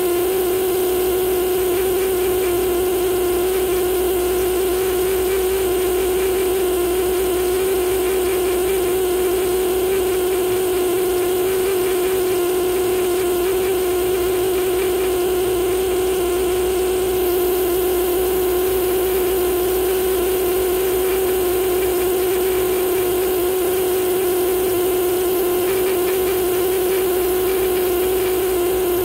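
Pneumatic air scribe running continuously, its vibrating needle chipping at Green River Formation stone: a steady buzzing tone with a hiss above it.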